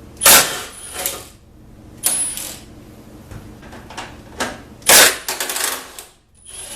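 Steel sway bar clanking and rattling against metal as it is worked out from under the car. The loudest knocks come about a quarter second in, about two seconds in and about five seconds in, with a quick rattle of smaller knocks after the last, and a short metallic ring follows some of them.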